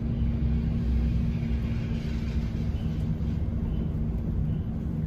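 Airport ramp bus running, heard from inside the cabin: a steady low engine and road rumble with a constant hum.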